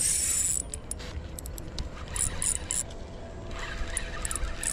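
Spinning reel being worked against a hooked catfish: reel clicks and whirs, with a short loud hissing burst at the start. Wind rumbles on the microphone underneath.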